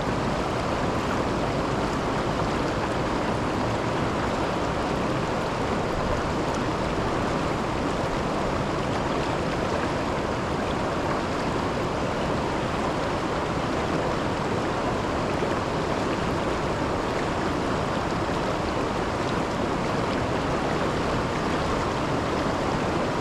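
Steady rush of river water flowing over and below a waterfall, an even sound with no breaks.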